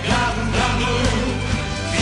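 Live concert band playing an upbeat song with a steady drum beat.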